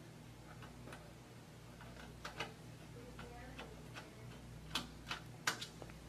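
Small metal clicks and ticks from mounting screws and a screwdriver working on a computer's sheet-metal drive cage, scattered at first, with three sharper clicks near the end, over a low steady hum.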